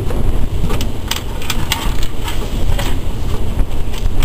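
Gusting wind buffeting the microphone with a heavy rumble, and a scattering of sharp clicks and knocks on top of it.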